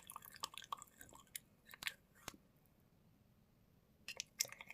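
Homemade slime being squeezed and worked by hand, giving faint scattered wet clicks and small pops. The clicking stops for about a second and a half past the middle, then starts again near the end.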